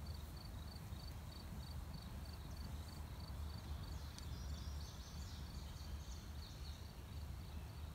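Outdoor ambience of insects chirping: a high pulsing chirp repeats about three times a second for the first few seconds, with faint short bird-like chirps around the middle, over a steady low hum.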